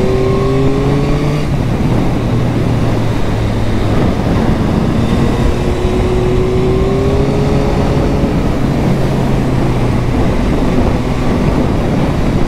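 Yamaha MT-09 SP's three-cylinder engine on its stock exhaust, rising in pitch as it accelerates near the start and again midway, easing off in between. Heavy wind rush on the microphone runs underneath.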